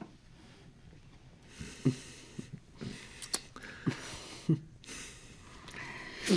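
A woman's stifled breathing behind her hand: breathy sniffs and several short, low catches of the voice that drop in pitch, the loudest near the start and just at the end.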